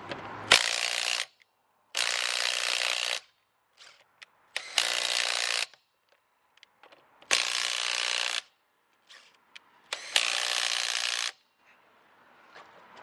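Cordless 1/2-inch impact driver hammering on lug nuts in five short bursts of about a second each, with pauses between them.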